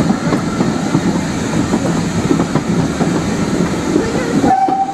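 Railway brake van rolling along the track over rail joints and pointwork: a steady rumble of wheels on rail with repeated clicks. Near the end a steady high note starts and holds.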